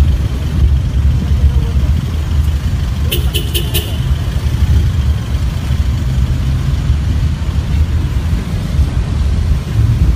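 Steady low rumble of outdoor street noise, with a short quick run of high clicks or rings about three seconds in.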